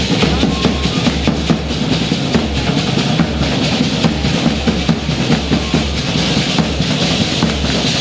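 Drum music for a traditional danza: a bass drum keeps a steady beat while the dancers' handheld rattles shake and click in rhythm.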